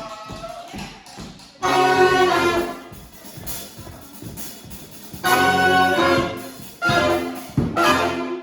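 Live brass band playing loud full-ensemble chords with quieter passages between them. The chords end in a few short stabs near the end and then stop abruptly.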